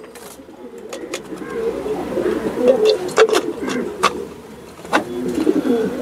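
Domestic pigeons cooing steadily in the loft, broken by about five sharp taps as the plastic mixer-grinder jar is knocked against a plastic tray to empty out the ground nut powder.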